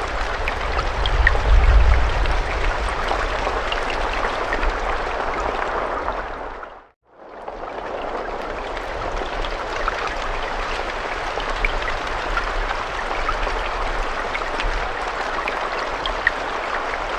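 Steady rain with scattered fine drop ticks, with a heavier low rumble in the first couple of seconds. About seven seconds in it fades out briefly to silence and comes back in.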